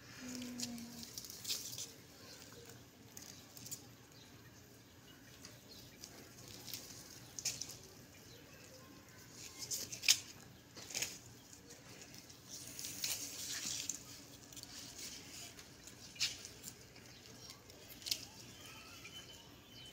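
Irregular soft rustles and small crackles of rose-bush leaves and stems as roses are plucked by hand.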